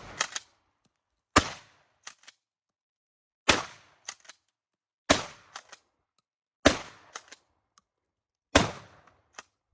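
A 12-gauge pump-action shotgun, a Stevens 320, fired five times in quick succession, about every one and a half to two seconds. Each shot is followed by the short double clack of the pump being racked to chamber the next shell.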